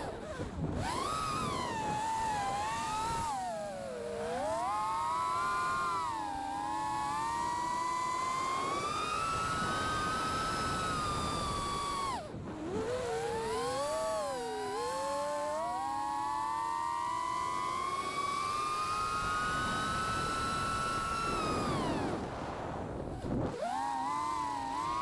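The Manta 5 SE V2 FPV quadcopter's brushless motors are whining, their pitch rising and falling with the throttle. Twice, about halfway through and near the end, the whine drops away sharply and then comes back, as the throttle is chopped and punched again.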